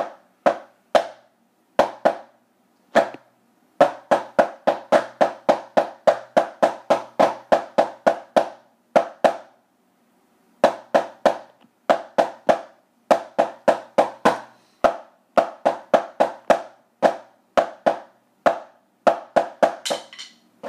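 Drumsticks striking a practice pad in an even rhythm of about four strokes a second, played in phrases with short pauses between them.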